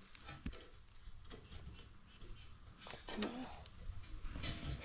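Crickets trilling steadily and high-pitched in the background, with a few faint clicks of hands working the mower's choke parts.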